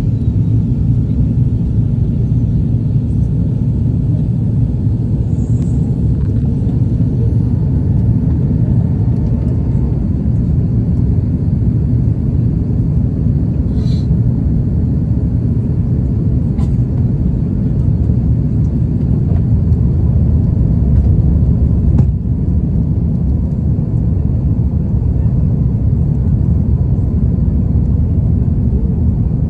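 Steady low roar of an Airbus airliner's jet engines and rushing airflow, heard from inside the passenger cabin. A few faint clicks stand out briefly in the middle.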